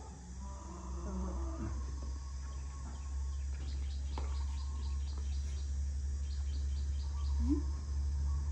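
Outdoor rural ambience: a steady low hum, with two runs of rapid high chirps, about six a second, around four and seven seconds in, and a few faint low animal calls.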